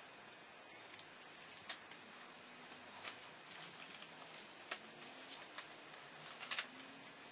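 Scattered small clicks and rattles of plastic Lego pieces being handled and picked through, a few sharper clicks standing out, over a faint quiet room background.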